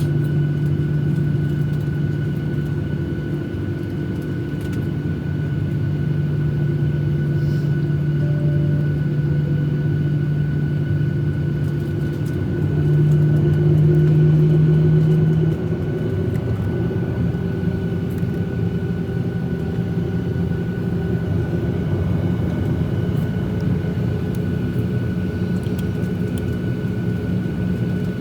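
Steady cabin drone of a Boeing 737-800 with its CFM56 jet engines running, heard from inside the passenger cabin, with a low hum and a couple of fixed whining tones above it. About 13 seconds in, a deeper hum swells and then cuts off suddenly a couple of seconds later.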